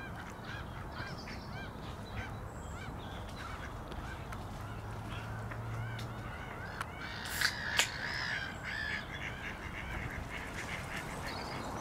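A flock of waterbirds calling: many short calls overlap and repeat, with a louder cluster of calls about seven to eight seconds in.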